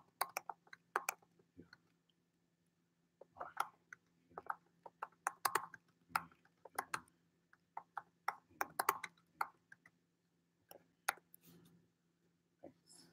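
Computer keyboard typing and clicking in irregular bursts of sharp keystrokes, over a faint low steady hum.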